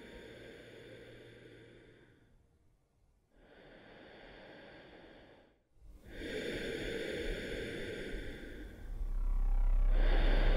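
A man breathing slowly and heavily through a gas mask, four long breaths with short pauses between them. A deep low rumble swells in near the end and becomes the loudest sound.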